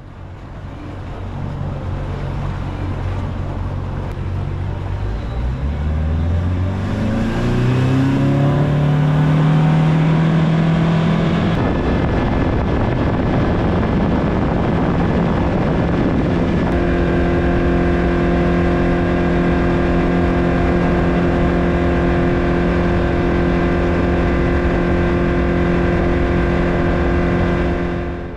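Boat's outboard motor getting under way: its pitch climbs steadily for about six seconds, then it settles into a steady cruise, with wind and water rushing past the hull.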